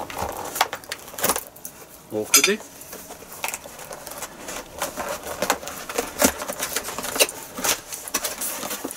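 A knife blade scraping and slicing through the security seal on a cardboard box, with many short scratches and clicks as the box is turned and handled.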